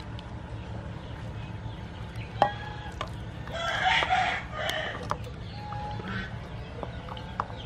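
A rooster crowing once, about four seconds in, with short clucks of chickens before and after. A few sharp knocks, the loudest about two and a half seconds in, from a wooden spoon against the steel soup pot.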